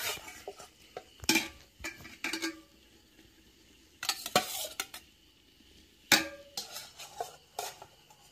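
A metal spoon scraping and knocking against an aluminium cooking pot as rice and chicken pieces are layered in. It comes in short clusters of clatter with quiet gaps between.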